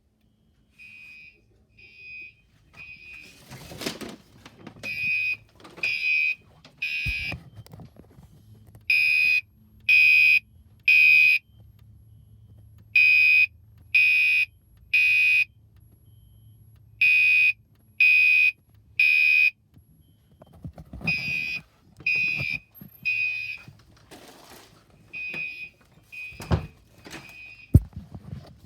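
Fire alarm horns, Gentex Commander 3 horn-strobes among them, sounding the temporal-3 evacuation code: three half-second blasts about a second apart, then a pause, repeating. The blasts grow loud through the middle and fainter again near the end, with a few thuds in between.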